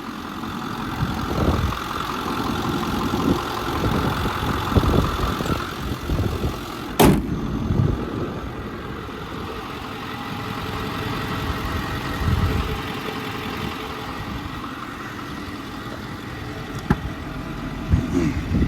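A motor vehicle's engine idling steadily. There is one sharp click about seven seconds in and a lighter one near the end.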